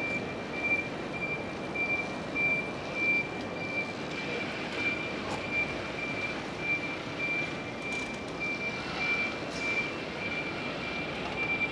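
Warning beeper of an electric station mobility buggy, a high beep repeating evenly and without pause while the buggy drives, over the steady rumble of the moving buggy in a large echoing station hall.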